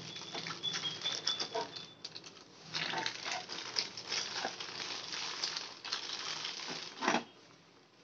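Thin plastic bag crinkling and rustling as a dome camera is pulled out of its wrapping, with a single knock just after seven seconds in as the camera is set down.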